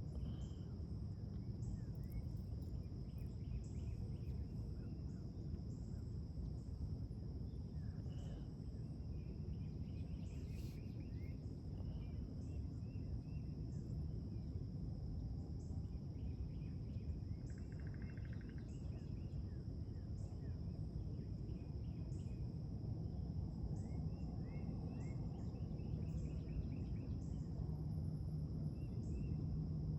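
Outdoor nature ambience: insects trilling in a steady high drone, with a regular ticking call about once a second and scattered short bird chirps, over a constant low rumble.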